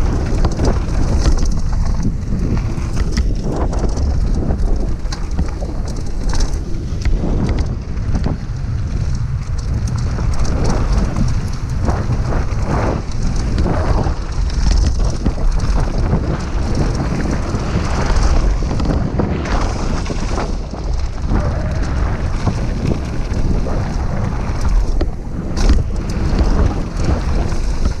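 Wind buffeting an action camera's microphone at speed on a downhill mountain bike, with the tyres crunching over loose gravel and the bike clattering over bumps in a steady stream of short knocks.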